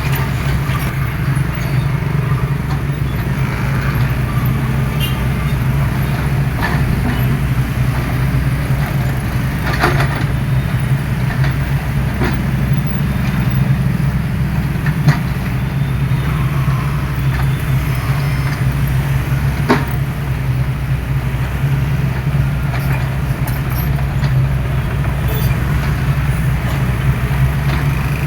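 Diesel engine of a hydraulic excavator running steadily while digging, with a few sharp knocks around the middle.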